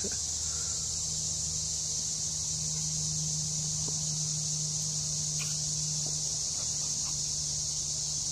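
Outdoor insect chorus: a steady, high-pitched buzzing drone with no break, over a faint steady low hum.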